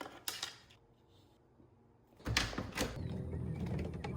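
Sharp clicks and knocks of things being handled in a kitchen, such as containers and cupboard doors, then a quiet gap. From a little over two seconds in comes a steady low rumble with more clicks.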